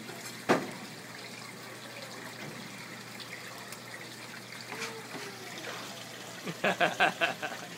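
Steady sizzle of sauced freshwater eel cooking on foil on a tabletop grill. A sharp click comes about half a second in, and a short burst of voice comes near the end.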